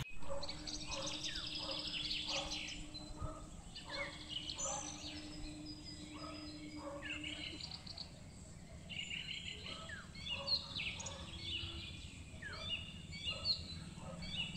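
Birds chirping and calling in many short, repeated notes, some sweeping downward, over a faint outdoor background.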